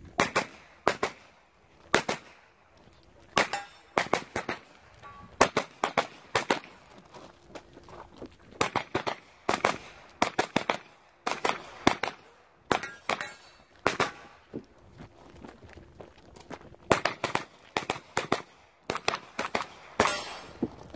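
AR-style 9mm pistol-caliber carbine firing rapid strings of shots, mostly quick pairs, during a timed stage run. Pauses of a second or more come between strings as the shooter moves to new positions.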